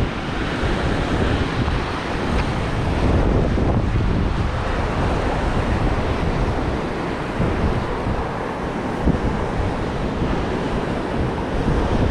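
Ocean surf washing over a rocky shoreline, with wind buffeting the microphone in a steady low rumble.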